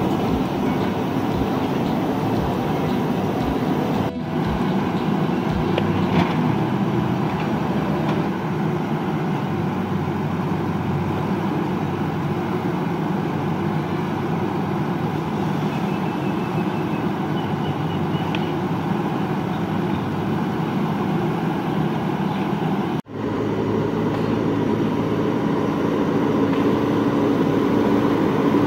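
Diesel engine of a JCB 3DX backhoe loader running steadily under work. The sound drops out for an instant about two-thirds of the way through.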